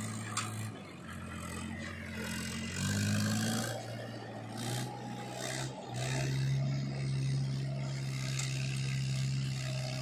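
Powertrac Euro 50 tractor's diesel engine running under load as it pulls a trolley heaped with mud over soft ground. Its note rises and falls a few times, then settles into a steady drone for the second half.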